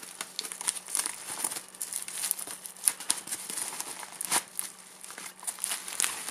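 Plastic mailer envelope and the plastic wrapping inside crinkling and rustling as hands open it and pull out the contents. The crackles are irregular, with a few sharper ones now and then.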